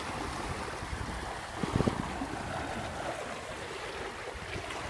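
Westerly Typhoon sailing yacht under sail: a steady rush of wind and sea water around the boat, with a brief louder rush about two seconds in.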